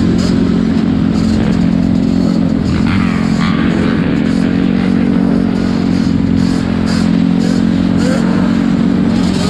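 Four-wheeler (ATV) engine running at a steady speed, with short clicks over it.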